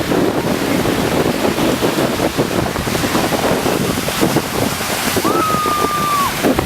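Wind buffeting the microphone over a steady rush of sea water. Near the end comes a single steady whistle-like tone, about a second long, that bends up at its start and drops off at its end.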